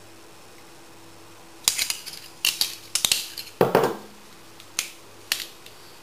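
Stainless steel Leatherman Wave multitools being folded shut and set down on a wooden table: a string of sharp metal clicks and knocks that begins a couple of seconds in, one of them a fuller knock on the wood.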